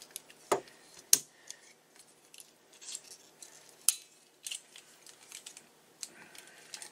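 Scattered clicks and small knocks of a rifle bipod being handled and adjusted, its legs and mount clicking; the two sharpest snaps come about a second in and near four seconds.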